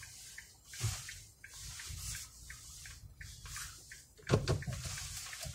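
Faint city street ambience with a low rumble of distant traffic, and a sharp knock about four seconds in.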